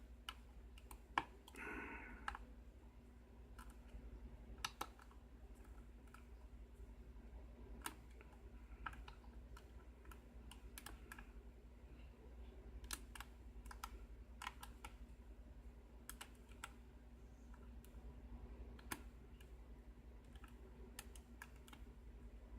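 Faint, irregular small clicks and taps of a lock pick working the pin stacks inside a 5-pin Dexter Kik lock cylinder during single-pin picking, over a steady low hum.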